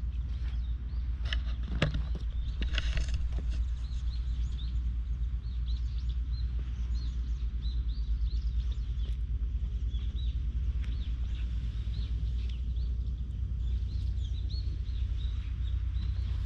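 Wind buffeting the camera microphone as a steady low rumble, with small birds chirping again and again in the background. A few clicks and a short scuffle sound about two seconds in.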